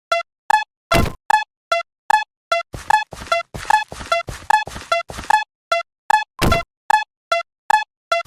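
Japanese railroad crossing alarm ringing 'kan-kan': short, bell-like strikes about four a second, alternating between two pitches. Two heavier thuds cut in, about a second in and again near the end.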